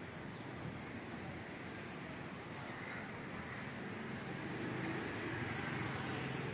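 Street traffic ambience: a steady hum of passing cars, growing a little louder about two-thirds of the way through.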